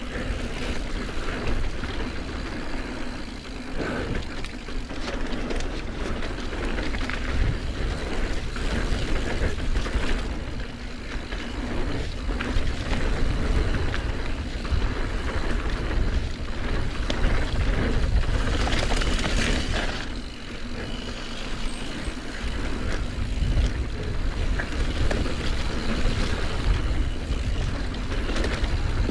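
Mountain bike ridden down a dirt bike-park flow trail: continuous tyre rumble with irregular rattles and knocks from the bike over bumps, and wind rushing on the microphone.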